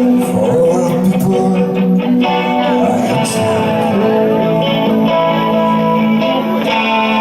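Live band playing an instrumental passage with plucked, strummed guitar over sustained notes.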